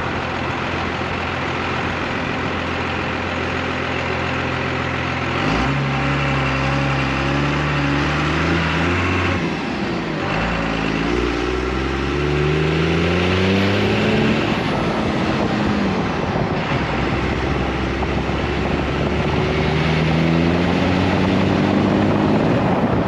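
1997 Dodge 2500's 12-valve Cummins turbo-diesel straight-six pulling the truck through the gears of a freshly swapped NV4500 manual: the engine note climbs under throttle, falls away at gear changes about ten and fifteen seconds in, and climbs again toward the end.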